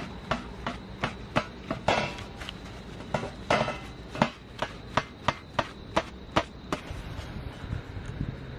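Repeated chopping strikes of a blade against wood, about three a second, two of them louder and longer, stopping near the end.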